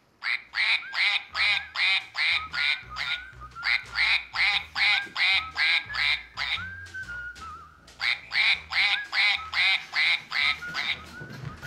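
Plush toy duck's electronic quacking, set off by a press: a fast, even run of about three quacks a second. Past the middle it breaks for one longer drawn-out note, then the quacking picks up again.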